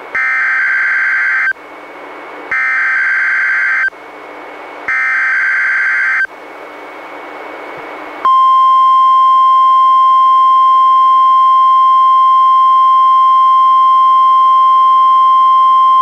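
NOAA Weather Radio Required Weekly Test signals received on a weather radio. Three bursts of SAME digital header data, each about a second and a half long with radio hiss between them, are followed about eight seconds in by the steady 1050 Hz warning alarm tone, which holds.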